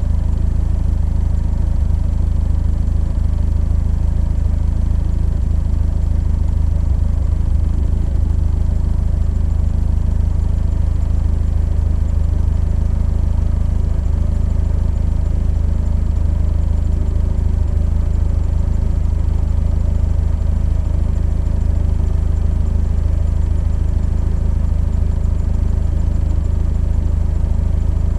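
Open-wheeled sports car engine idling steadily, heard close up from a camera mounted on the car, a low even hum that does not rise or fall.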